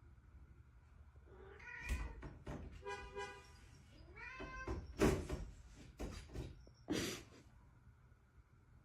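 Domestic cat meowing several times in short pitched calls, mixed with a few brief noisy sounds, the loudest about five seconds in.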